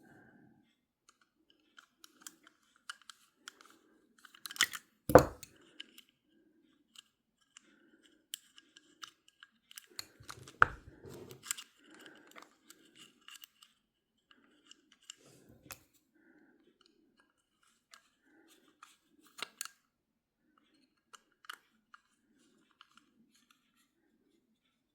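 Small metallic clicks, ticks and scrapes as a screw and tool are worked against a push-button fishing reel's metal parts, trying to line the screw up with its hole, with louder knocks about five and ten and a half seconds in.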